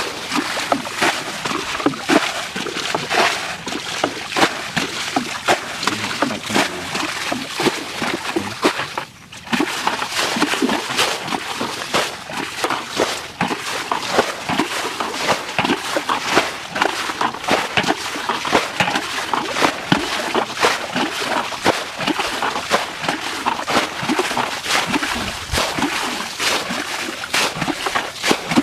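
Water splashing and sloshing, with many quick irregular splashes, broken off briefly by a short gap about nine seconds in.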